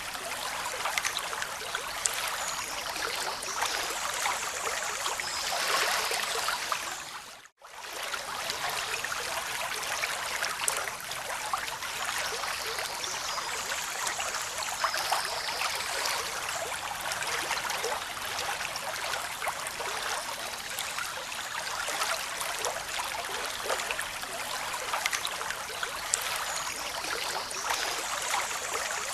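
Continuous running water, a steady rushing hiss. It fades out briefly and comes straight back about seven and a half seconds in.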